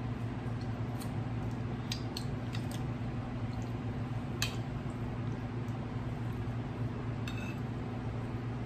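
Close-up eating sounds: wet mouth and finger-licking noises and a metal fork tapping and scraping on a plate, with a few sharp clicks and a short ringing clink near the end. A steady low hum lies under it all.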